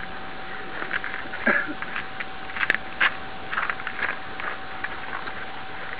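Irregular footsteps crunching on icy slush and broken crash debris, with one sharp click about two and a half seconds in. A steady tone sounds underneath throughout.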